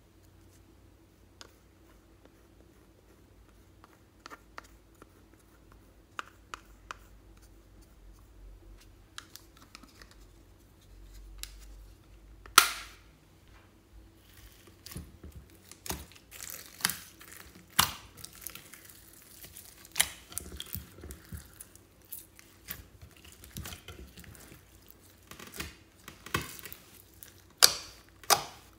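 Hands pressing and kneading clear slime loaded with glitter, sequins and beads in a glass bowl, giving sticky clicks and crackles at irregular intervals. These come thick from about halfway in. Before that there are only a few faint clicks and one sharp click.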